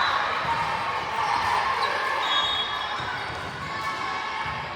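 Indoor gym sound during a volleyball match: a ball bouncing and thumping on the court under a steady hum of indistinct voices.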